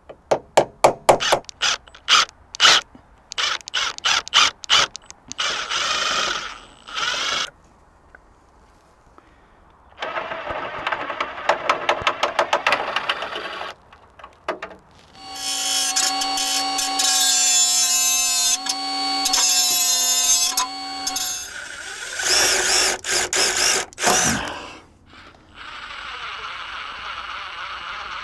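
A hammer tapping a centre punch on steel, a quick run of sharp metallic taps, then a cordless drill fitted with a left-hand drill bit running in bursts, its motor whining steadily for several seconds at a time, as it drills out broken screws and bolts. A steady hiss near the end.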